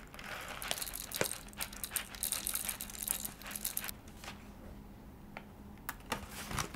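Whole roasted coffee beans poured into the hopper of a hand coffee grinder, a dense rattle of small clicks for about four seconds, then a few scattered clicks near the end.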